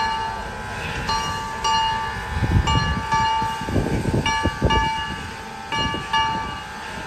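Steam locomotive's bell ringing in a steady swinging rhythm, about two strokes a second. Near the middle come a few deep, noisy chuffs from the engine.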